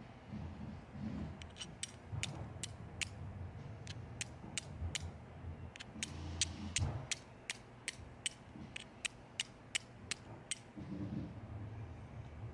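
Steel fire striker struck against a hand-held stone, flint-and-steel style: about thirty sharp metallic clicks in quick runs of three or four a second with short pauses, stopping shortly before the end. Each strike throws sparks onto fine purut tinder on the stone's edge, with striking kept up until a spark catches as an ember.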